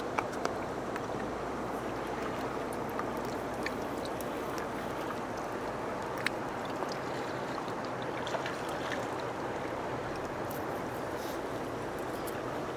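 River water flowing steadily past the rocky bank, an even rushing sound with a few faint sharp ticks now and then.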